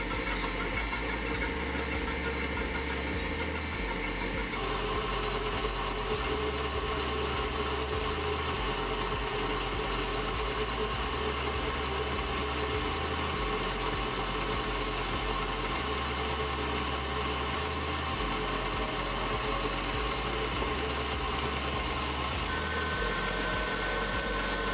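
KitchenAid Classic stand mixer running with its wire whisk beating egg whites in a stainless-steel bowl: a steady motor whir. It gets louder a few seconds in.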